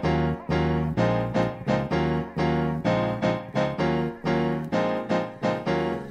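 Soul music: a piano or electric piano playing repeated chords, about two strikes a second, over a bass line, with no vocal.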